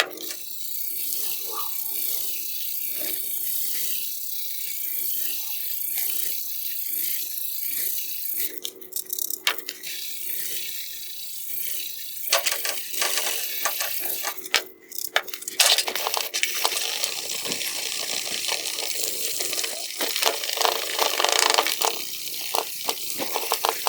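1000-grit wet sandpaper rubbed by hand over a plastic headlight lens: a steady gritty hiss made of quick scratchy strokes, louder and more uneven from about halfway.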